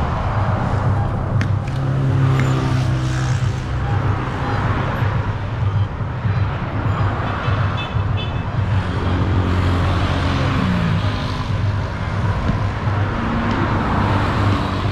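Busy highway traffic: vehicle engines running with a steady low hum over road noise, one engine dropping in pitch about ten seconds in.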